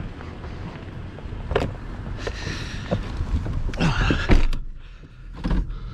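Scattered knocks, clunks and rattles inside a truck cab over a low engine rumble, with a louder burst of rattling about four seconds in.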